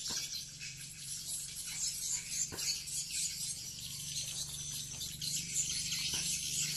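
Dense, high-pitched twittering of swiftlet calls: the call-in lure sound playing from a swiftlet house's tweeters while swiftlets circle overhead. A low steady hum runs beneath.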